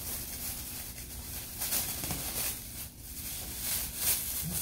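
Thin plastic carry-out bag crinkling and rustling in several short spells as hands untie its knotted handles and pull it open.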